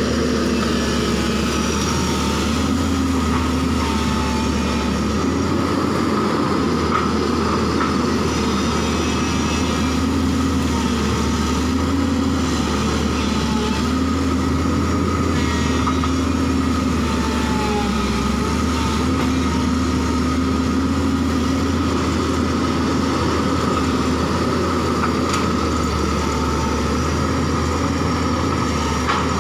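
JCB crawler excavator's diesel engine running steadily as the machine travels on its tracks through mud, with a whine that rises and falls in pitch over the engine.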